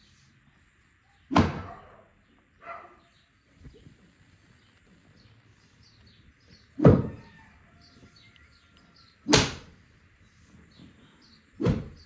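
A thin wooden stick beating a heap of raw wool to loosen and fluff it: sharp whacks every two to three seconds, a couple of them lighter, with birds chirping faintly between.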